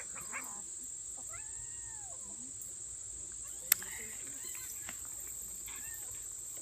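Small kitten mewing several times in short, arching cries over a steady high insect drone, with one sharp click a little past halfway.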